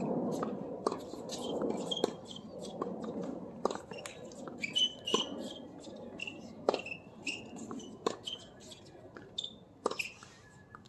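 Tennis balls struck by racquets during a doubles rally: a run of sharp pops about a second apart. Short high squeaks come in between the pops.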